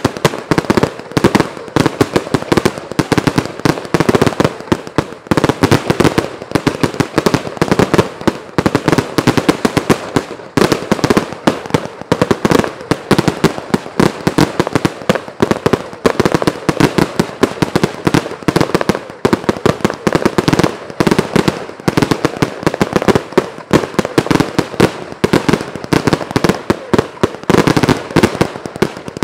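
1.4G salute firework cake firing a rapid, unbroken barrage of loud bangs.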